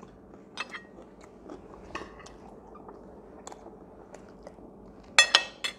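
Close-up chewing of a falafel-salad sandwich in pita bread: soft, wet mouth clicks scattered throughout, with a louder cluster of sharp clicks about five seconds in.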